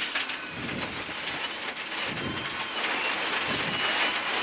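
Rally car at speed on a loose gravel road, heard from inside the cabin: the engine running under load while loose stones rattle and ping against the car's underside in a steady spray of small clicks.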